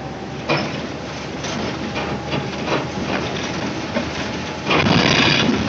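Cabin noise inside a moving minibus: steady engine and road noise with rattles and knocks from the body, and a louder burst of noise lasting about half a second near the end.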